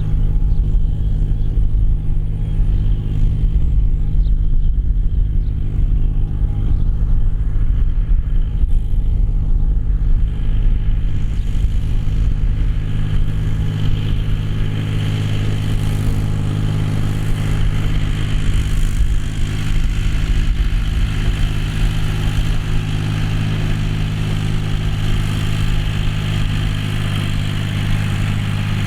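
John Deere 5045D tractor's three-cylinder diesel engine running steadily while ploughing, a deep, even hum. About eleven seconds in, a higher, hissing noise joins it and stays.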